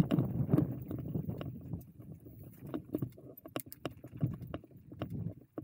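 Electric mountain bike rolling down a trail: the tyres rumble over the ground, and the bike rattles with many sharp clicks and knocks. It is loudest in the first second, then quieter.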